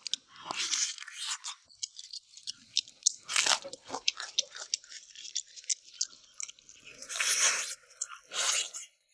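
Close-up chewing and biting of braised beef spine meat with raw scallion: many wet mouth clicks, with louder sucking bursts about three and a half seconds in and again near the end.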